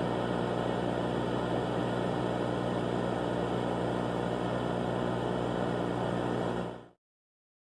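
Steady droning hum with a layer of hiss, unchanging until it fades out near the end into dead silence.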